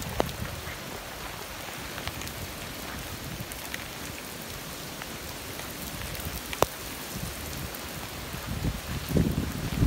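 Rain falling: a steady, even hiss with scattered sharp drop ticks. A low rumble builds near the end.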